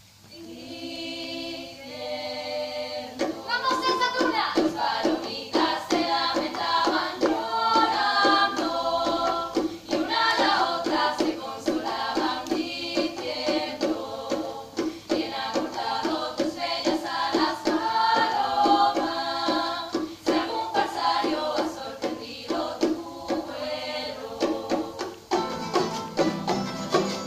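Spanish tuna ensemble of guitars, bandurrias and lutes playing a folk song, with women's voices singing together. It opens with held chords for about three seconds, then settles into a steady strummed and plucked rhythm.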